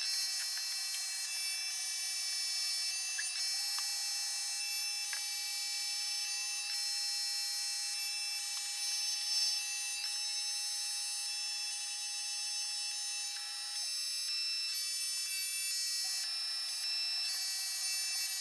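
Proxxon MF-70 micro mill, converted to CNC, running under motor drive: several steady high-pitched whines that shift in steps as the moves change, with a lower steady tone held from about four seconds in to about fourteen seconds in.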